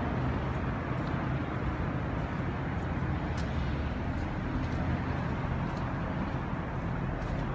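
Steady low rumble of outdoor urban background noise, with faint scattered ticks on top.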